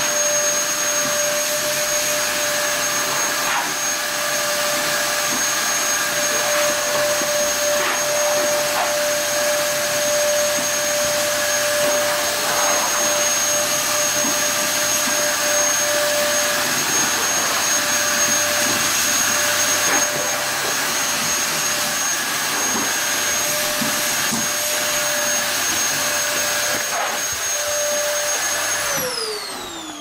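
Vacuum cleaner running steadily, a rushing noise with a high whine over it. Near the end it is switched off and the motor's pitch falls as it spins down.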